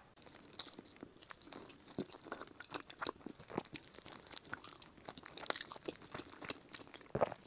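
Close-miked bites and chewing of a soft, sticky green glutinous rice cake (qingtuan) filled with strawberry pork floss: irregular wet mouth clicks and smacks, with a louder cluster near the end.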